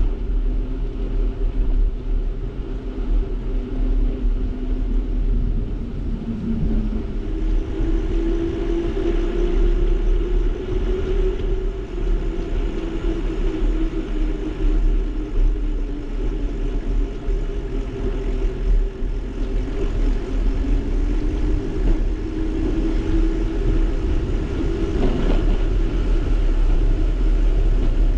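Wind rumbling on the microphone with tyre and road noise from a moving bicycle, and a faint hum that slowly rises and falls in pitch.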